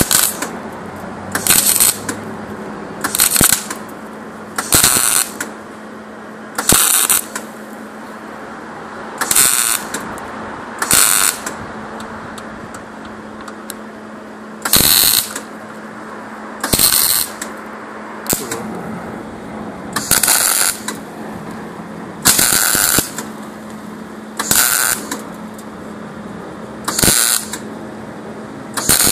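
Stick arc welder laying short tack welds: about fifteen brief crackling arc bursts, each under a second and a second or two apart, over a steady low hum.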